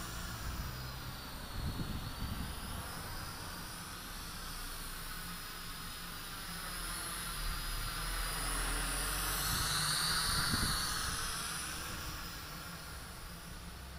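JJRC H8D quadcopter's electric motors and propellers whining as it flies overhead, the pitch rising and falling in slow waves as it manoeuvres and loudest about ten seconds in. Wind rumbles and buffets on the microphone underneath.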